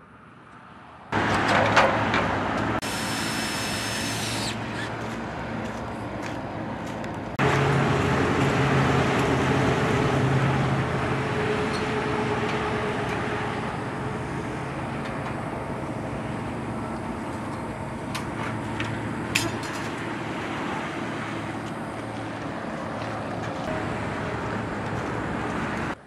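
An engine running steadily with a low hum. A brief high hiss comes about three seconds in, and the engine suddenly gets louder about seven seconds in.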